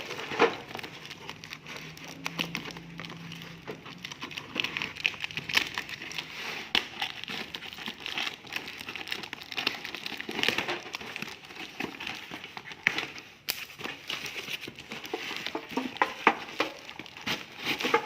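A parcel's packaging being torn open and handled, with irregular crinkling, rustling and crackling throughout.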